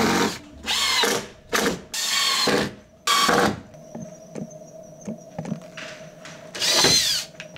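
Cordless drill driving screws up into pine ceiling boards in short bursts of motor whine: about five in the first three and a half seconds and one more near the end, with light clicks between.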